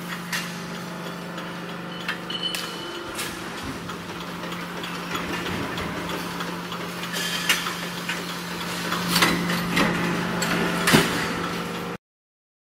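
Mechanical power punch press running with a steady hum, with irregular sharp metal clacks as the steel racking upright is punched and shifted through the die.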